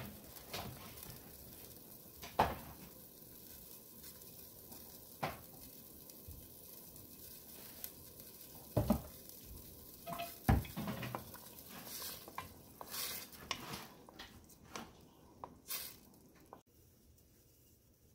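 Vegetable soup boiling in a metal pot, a steady bubbling hiss broken by scattered clinks and knocks of a utensil against the pot. Near the end the lid goes on and the bubbling turns quieter.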